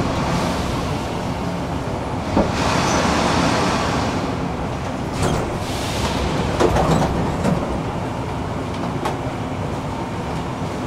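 Warsaw metro train running through the tunnel, heard from inside the carriage: a steady rumble with a few sharp clicks from the track and swells of hiss a few seconds in.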